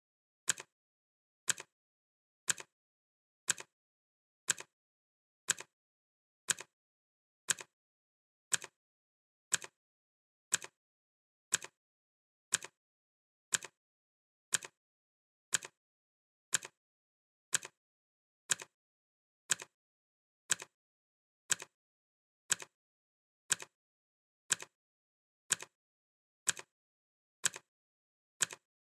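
Clock ticking sound effect: one sharp tick every second, evenly spaced, with silence between the ticks.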